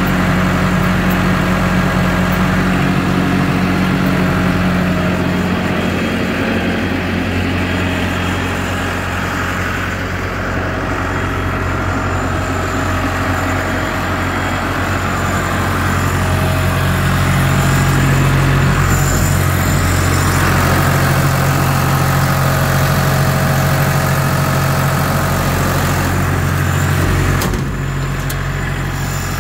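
Diesel engine of a Zega D335 drill rig running steadily, its note shifting a few times, louder through the middle and dropping off a little near the end.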